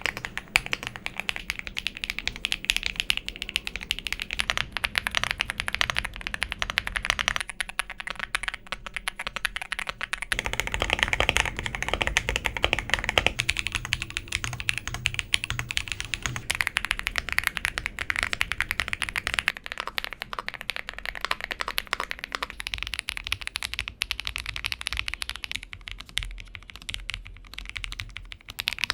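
Typing on a Lofree Flow Lite 84 low-profile mechanical keyboard: a continuous run of quick keystroke clicks, as a typing sound test.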